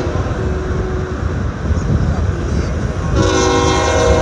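A low rumble, then about three seconds in a diesel freight locomotive's air horn starts sounding, a loud chord of several steady tones held on.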